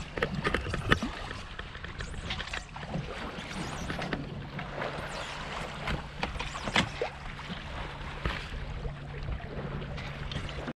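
Water splashing and slapping against the hull of an O'Day 25 sailboat moving under sail with the motor off, with wind buffeting the microphone. A faint steady low hum runs underneath.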